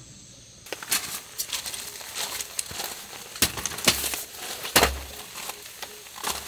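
Camping gear being handled on gravel: irregular clacks, knocks and rustling as a folding camp chair is picked up, with a couple of dull thumps midway. A short stretch of music at the start stops abruptly.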